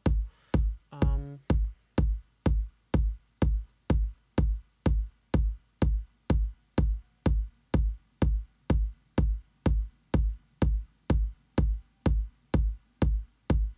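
Layered electronic kick drums from Native Instruments Maschine looping a steady four-on-the-floor pattern at about 125 BPM, each beat a deep sub thump with a sharp click on top. About a second in, a short pitched sound plays over the beat.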